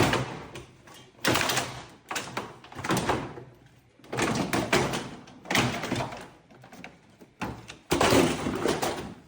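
Plastic front bumper of a Peugeot 207 being yanked and wrenched off by hand: about seven loud bouts of clunking, cracking and scraping, each lasting up to a second or so, with short pauses between pulls.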